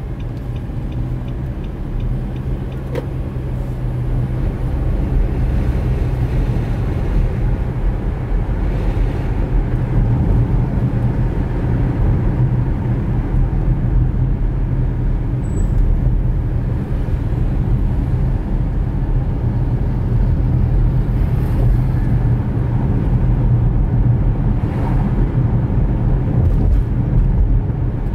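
Car driving on a road, recorded by a dashcam: a steady low rumble of tyres and engine that grows a little louder over the first several seconds.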